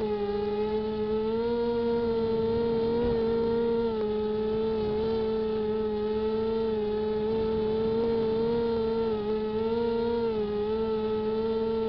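Multirotor drone's motors and propellers, heard from its own onboard camera: a steady buzzing whine whose pitch steps slightly up and down every second or two as the throttle is adjusted in flight.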